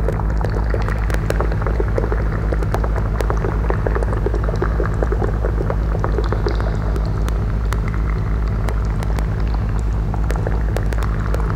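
Live electroacoustic performance sound: a steady deep drone under dense crackling and popping like bubbling water, with scattered sharp clicks.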